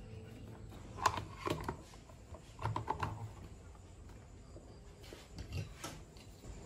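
Light plastic and metal clicks and knocks from handling a desk fan's parts as its plastic motor housing is fitted over the motor and a wire guard is picked up. They come in short clusters about a second in, around three seconds in, and again near six seconds.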